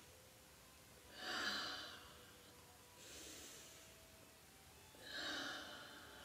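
A woman taking slow, deep breaths, soft and airy, three breath sounds about two seconds apart: calming breaths, in as if smelling a flower and out as if blowing out a candle.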